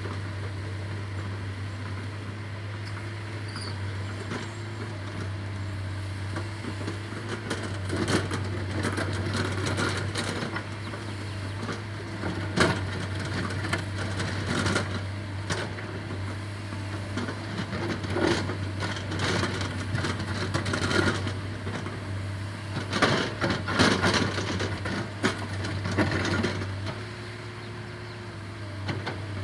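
Diesel engine of an earthmoving machine running steadily. From about eight seconds in there is irregular scraping and knocking, as of a bucket working soil and stones.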